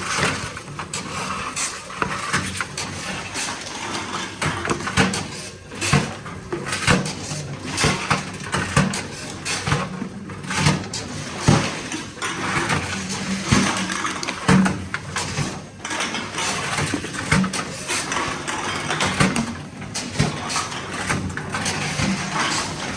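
Tomra T-53 reverse vending machine taking in empty plastic bottles one after another. A steady machine hum runs under irregular clunks and clatters of bottles, about one every second or two.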